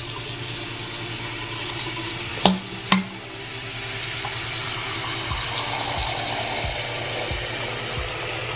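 Water running from a Pfister Ladera bathroom faucet into a ceramic sink, the thin stream splashing on the drain cap and pooling in the basin: a steady hiss. Two sharp clicks about a third of the way in.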